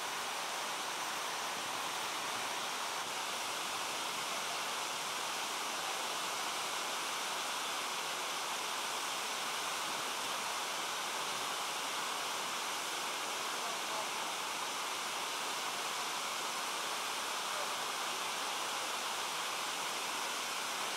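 Steady rushing of water flowing over a low concrete ledge.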